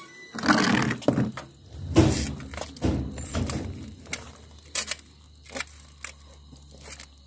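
Aluminium foil being crumpled and pressed by hand around a coconut, in several loud rustling bursts during the first four seconds, followed by a few scattered clicks.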